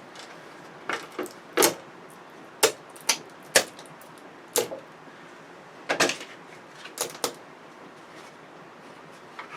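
Irregular sharp clicks and knocks, about ten in all, as the plastic and metal parts of an LED television are handled and pulled apart.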